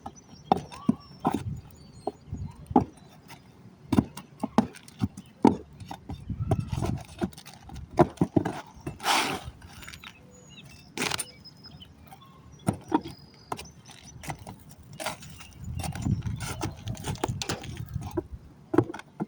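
Asphalt shingles being pried and pulled off a roof with a hand tool: irregular sharp knocks, taps and clinks of metal on shingles and nails, with scraping and rustling in between.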